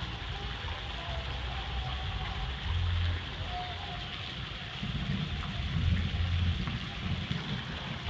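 Steady splashing hiss of a fountain's water jets falling into a basin, over a low rumble that swells about five seconds in.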